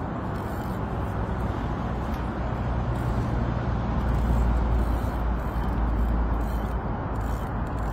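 Wind rumbling and buffeting on the microphone, a steady low noise that grows stronger about four seconds in.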